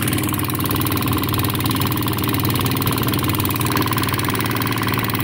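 Boat engine idling steadily with an even, rapid low throb.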